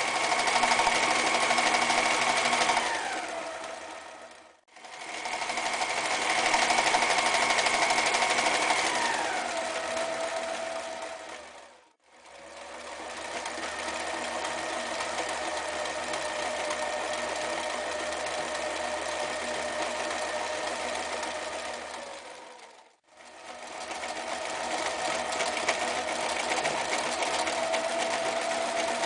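Frister + Rossmann 1080 electric sewing machine stitching through several layers of denim and other heavy fabric, in four separate runs. In the first two runs its motor whine drops in pitch as the machine slows near the end.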